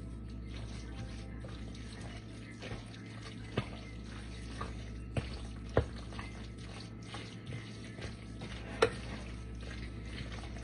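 Spoon stirring mayonnaise-dressed tuna pasta salad in a bowl: soft wet squishing, with a few sharp clicks of the spoon against the bowl.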